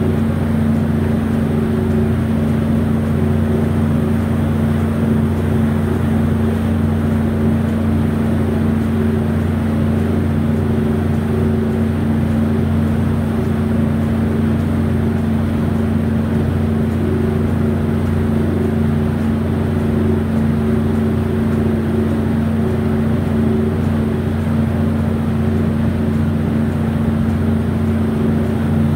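Boat engine running steadily: a constant low drone with no change in speed.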